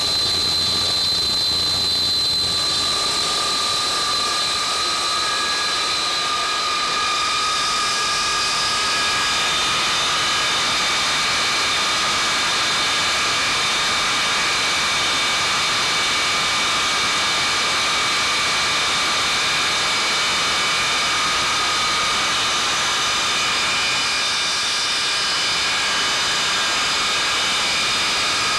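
Pratt & Whitney J57 turbojet engines of a KC-135A running steadily on the ground during a maintenance engine run, a loud jet noise with several high whining tones that shift slightly about two seconds in.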